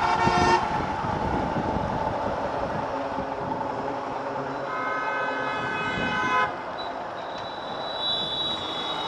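Road traffic heard from a moving motorcycle: a steady rush of wind and traffic noise, with two vehicle horn blasts, a short one at the start and a longer one of about two seconds about five seconds in. A faint high thin tone sounds near the end.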